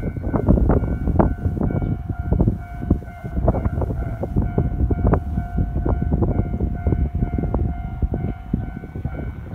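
Japanese level-crossing alarm ringing on and on in a steady pulsing tone. Under it, an Ohmi Railway train runs through the crossing with a deep rumble and many irregular knocks from its wheels.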